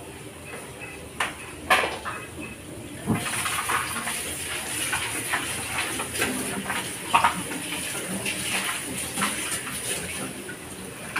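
Diced pork frying in a wok: a steady sizzle sets in about three seconds in, with crackles and pops running through it. Before that come a couple of sharp knocks.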